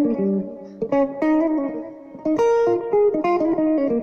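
Electric guitar playing a short improvised melodic phrase over a B-flat 7th chord, mixing the B-flat Mixolydian and blues scales. It is a run of plucked notes with brief pauses between the groups.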